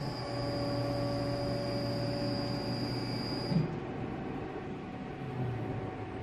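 The deck-lift mechanism of a Marana Forni rotating-deck pizza oven runs with a steady hum and a high whine as it brings the deck back to its home position at the end of the cook cycle. It stops with a short clunk about three and a half seconds in, and a lower steady hum carries on.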